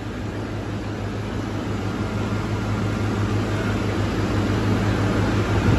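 Woodworking round rod making machine running as a wooden rod feeds through its rubber feed rollers: a steady motor hum under a wide rushing noise that slowly grows louder.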